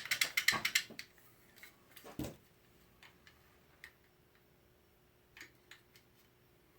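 Rapid run of small sharp mechanical clicks, about eight to ten a second, that stops about a second in, followed by a few scattered light clicks and one duller knock, from hand work on a small connector and its metal pins.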